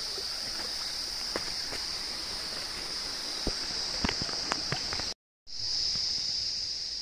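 Steady, high-pitched chirring of crickets or other insects in rural vegetation, with scattered crackles of footsteps pushing through grass and brush. The sound cuts out for a moment about five seconds in.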